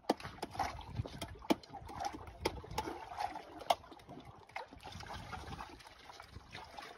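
Metal spoon clicking and scraping against an opened sea urchin shell as the roe is scooped out, a sharp click every second or so, over wet eating sounds.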